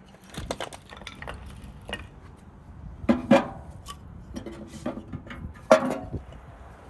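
Split firewood sticks clattering and knocking against each other as they are stacked and dropped into a steel fire drum. The loudest knocks, about three seconds in and again near the end, have a short metallic ring.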